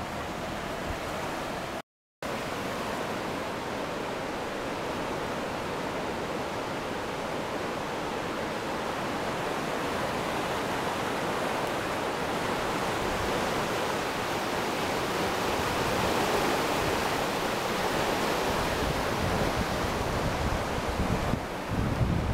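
Hérault river in spate, its swollen floodwater rushing by with a steady, even noise. The sound drops out for a moment about two seconds in, and wind buffets the microphone near the end.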